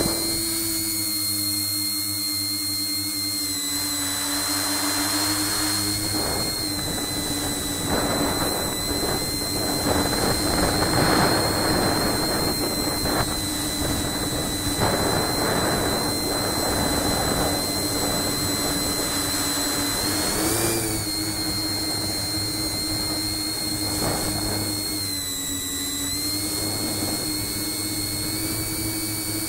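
Tricopter's brushless motors and three-blade propellers running steadily in flight, a high steady whine over a rushing noise that swells and fades between about 4 and 20 seconds in. The pitch rises briefly about 20 seconds in, as the throttle changes.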